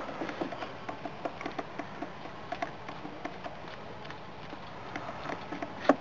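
Small, irregular metallic clicks and ticks as a hex key turns in the set screw of a battery terminal and the terminal is handled, with one sharper click near the end.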